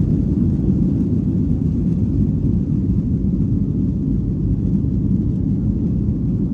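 Cabin noise of a Boeing 737-800 taking off: the CFM56-7B jet engines at takeoff thrust make a steady low rumble as the airliner leaves the runway and climbs.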